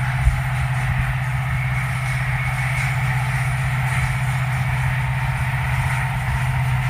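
WDP4D diesel-electric locomotive running with a steady low hum, with a fainter steady higher tone above it. There is one brief knock just after the start.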